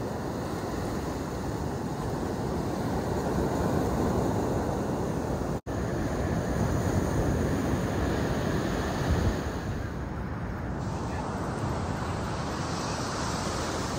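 Ocean surf washing up a sandy beach, with wind rumbling on the microphone. The sound cuts out for an instant about five and a half seconds in, and its tone shifts a little near eleven seconds.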